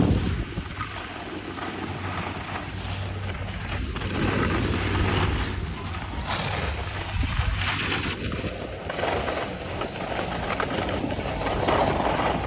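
Wind buffeting the microphone over the hiss and scrape of skis sliding on packed snow, swelling and easing with the turns.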